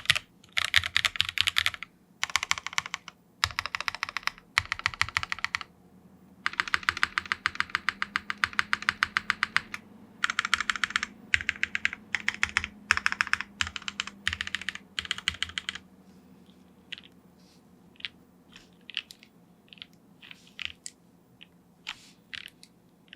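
Typing on a Frog TKL mechanical keyboard with Epsilon switches, GMK keycaps, an FR4 half-plate and no case foam: bursts of fast keystrokes a second or more long, with short pauses between them. After about 16 seconds the typing thins out to a few fainter, separate clicks.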